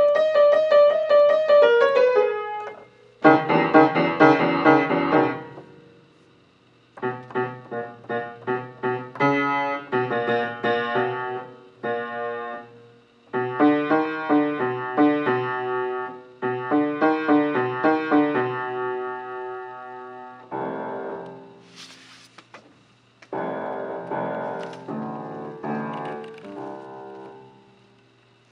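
A piano-voiced keyboard played in separate phrases of chords and quick notes, each a few seconds long, with brief pauses between them.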